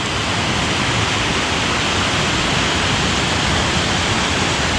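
Steady rush of a small waterfall and stream, an even hiss of falling and running water.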